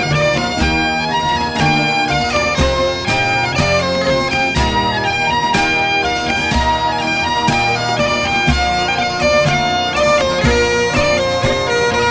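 Instrumental break in a Scottish folk song: a bagpipe melody over a steady drone, with a regular drumbeat about once a second.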